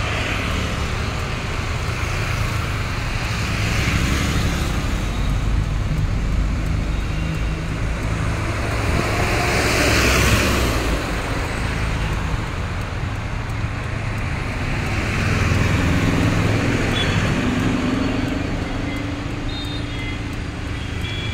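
Steady road traffic noise, engines and tyres running, swelling as a bus passes close by about ten seconds in.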